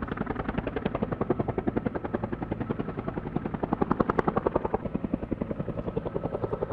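Aircraft running steadily with a fast, even beat of about a dozen pulses a second.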